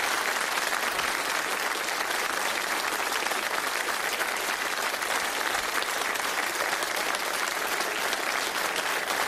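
Large studio audience applauding steadily, a dense even clatter of many hands clapping.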